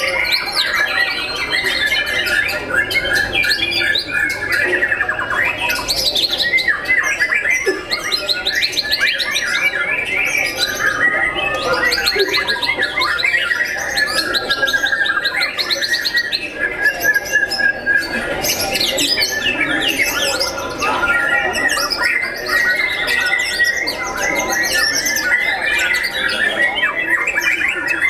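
White-rumped shama (murai batu) singing almost without pause, a varied run of clear whistles and rapid trills, mixed with the song of other caged songbirds.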